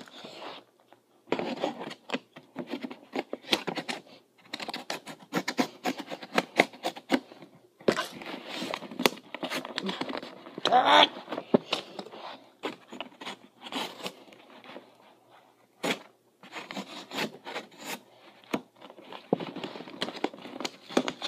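A taped cardboard box being picked, scraped and torn at by hand: irregular scratching, tearing and crinkling. There is a short pitched vocal sound about halfway through.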